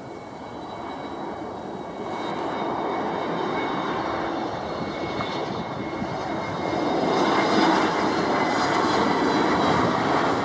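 Jet engines of an Airbus A320-family twinjet airliner low on final approach, a steady rushing noise that grows louder about seven seconds in as the plane passes close by.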